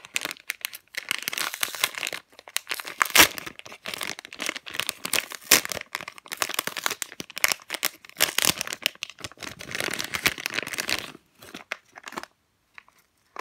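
A thin printed plastic retail bag crinkling and crackling as hands pull it open, with sharper snaps about three and five and a half seconds in. The crinkling stops about eleven seconds in.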